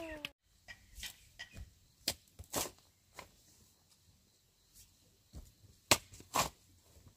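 Steel shovel digging into loose clay soil: scattered short scrapes and crunches as the blade is driven in and soil is lifted, with two louder pairs of strokes, one near the middle and one near the end.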